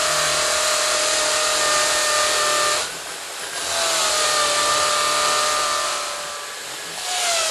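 Corded electric drill with a masonry bit boring into a wall, running loud in bursts: it eases off briefly about three seconds in, runs again, then eases off and gives a short final burst near the end. The motor's pitch sags a little at the start of each burst as the bit takes the load.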